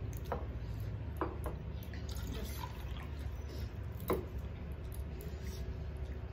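Eating with the hands at a meal: fingers mixing rice and curry on brass plates, and water sipped from steel tumblers. A few soft wet clicks sound over a steady low hum.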